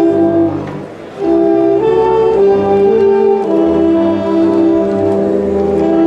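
A Peruvian brass band plays a huayno: saxophones and brass in held notes over a sousaphone bass. The band thins out briefly about a second in, then comes back in full.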